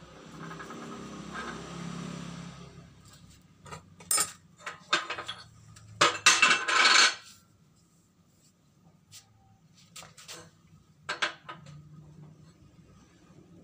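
Metal parts clinking and clattering against the steel plate of a hydraulic press as they are handled and set in place. A scraping rustle comes first, then a run of sharp metal knocks around the middle, loudest there, and a few lighter clicks later.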